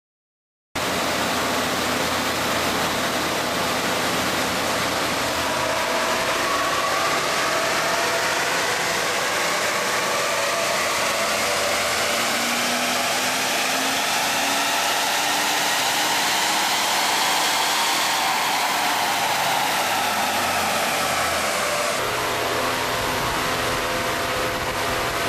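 2007 Ford Expedition's 5.4-litre V8, in four-wheel drive on a chassis dynamometer, starting about a second in over a steady rushing noise. The engine climbs slowly in pitch for about twelve seconds in a full-throttle dyno pull, then winds back down over a few seconds, and the sound settles to a steadier level near the end.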